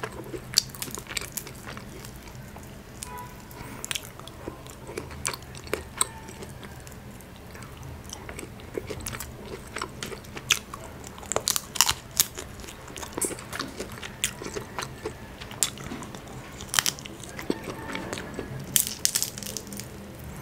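Close-miked crab shell being cracked and pulled apart by hand and the meat picked out, with chewing: irregular sharp clicks and snaps all through.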